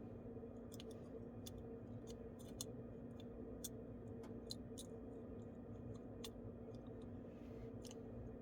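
Small, sharp, irregular clicks and taps, about fifteen of them, as tools and small parts are handled on a smartphone under repair, over a steady low electrical hum.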